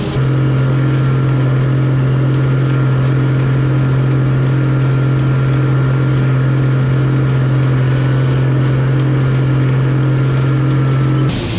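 Machine running at a steady speed: a strong, constant low hum with a faint high whistle above it. It starts and stops abruptly.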